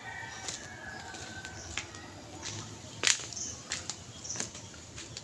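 A rooster crowing faintly in one long, slightly falling call that ends about a second and a half in, with scattered sharp clicks and knocks, the loudest about three seconds in.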